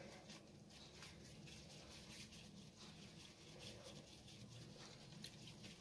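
Near silence, with faint soft handling sounds as a piece of soft flour dough is pinched off and rounded into a ball between the hands.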